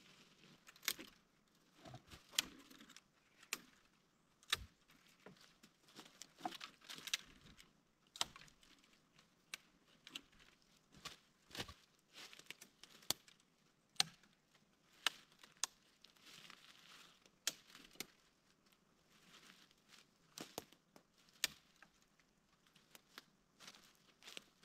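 Faint, irregular sharp clicks and snaps, roughly one or two a second, with soft crackling rustle between them.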